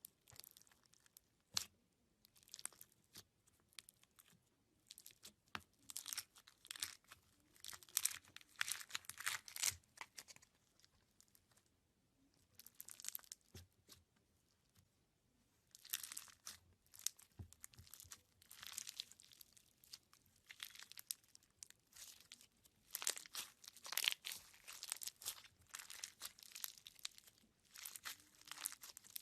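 A knife cutting and scraping through a dry bar of soap in runs of crisp crunching strokes, with a couple of short pauses.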